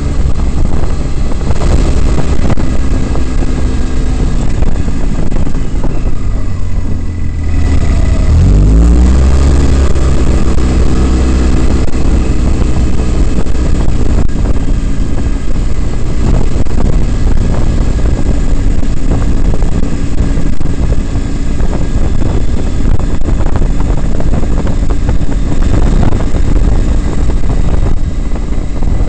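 Polaris RZR side-by-side's engine running under way, heard from the open cab with road and wind noise. About eight seconds in the engine note drops and then climbs as the revs rise again.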